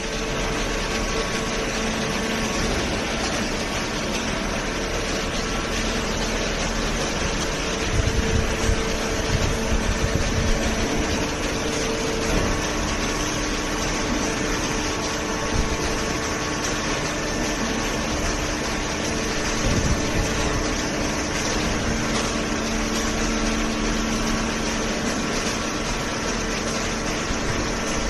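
Hydraulic cardboard baler and its infeed conveyor running: a steady mechanical hum and hiss, with a few low thumps about a third of the way in.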